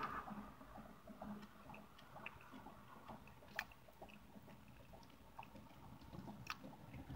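Quiet, sparse wet clicks of chewing a mouthful of pineapple pie with the mouth closed, along with fingers picking at the flaky crust and filling in a foil pie tin; two sharper clicks stand out about three and a half and six and a half seconds in.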